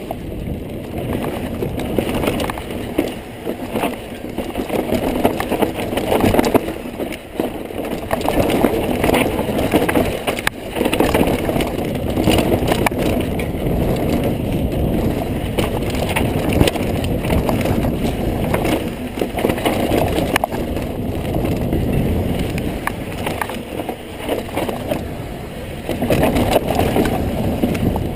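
2014 Kona Process 134 full-suspension mountain bike descending a dry dirt singletrack: a continuous rumble and rattle of tyres on dirt and the bike's parts, mixed with wind noise, rising and falling in loudness with the terrain.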